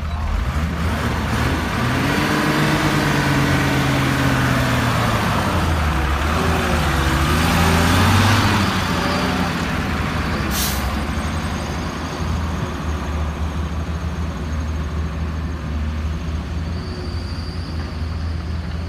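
Heavy diesel dump truck engine revving, its pitch rising and falling and loudest about eight seconds in, then running more steadily. A short, sharp hiss of air comes just before eleven seconds in, like an air brake releasing.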